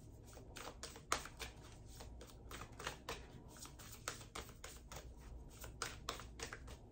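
Oracle card deck being shuffled by hand: a soft, irregular run of card flicks and riffles, several a second.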